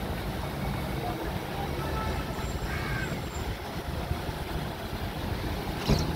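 Steady city traffic rumble and hiss, with a single sharp knock near the end.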